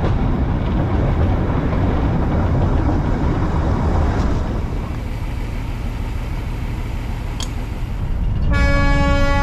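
Darjeeling Himalayan Railway narrow-gauge toy train running on the track, heard from on board as a steady rumble. Near the end its horn sounds one long steady note.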